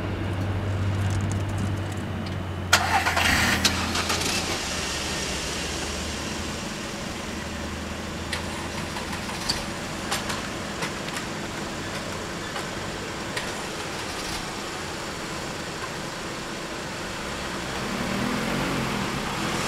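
Car engine idling with a steady low hum, heard from inside a car, and a brief loud burst of noise about three seconds in. Near the end an engine speeds up as a car pulls away.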